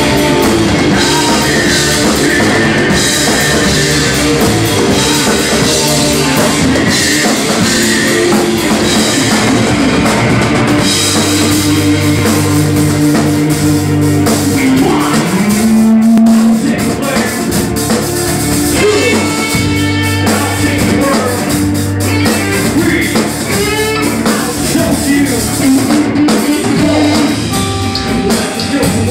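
Live rock band playing loudly: a drum kit with cymbals driving under electric guitar.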